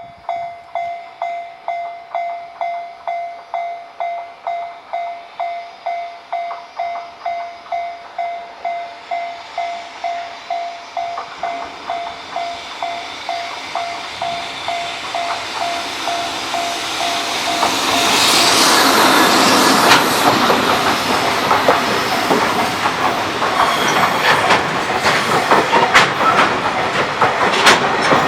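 Japanese level-crossing warning bell starts ringing, a single tone struck about twice a second. About halfway through, a JR Freight EF65 electric locomotive and its freight train come up and pass, the noise swelling to a loud rush with wheels clicking over rail joints.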